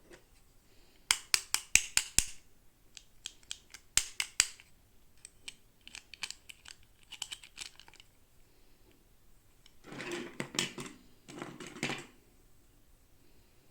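Hands handling plastic toy packaging. First comes a quick run of sharp clicks and taps, then more scattered clicks, then two short rustling or scraping bursts about ten seconds in.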